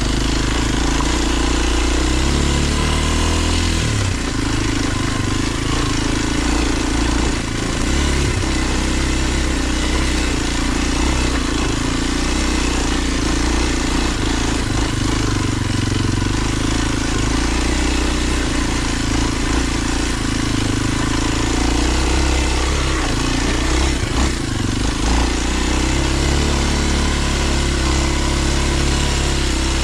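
Kawasaki KLX230's single-cylinder four-stroke engine running steadily on a trail ride, its pitch rising and falling with the throttle. A few sharp knocks about three-quarters of the way through.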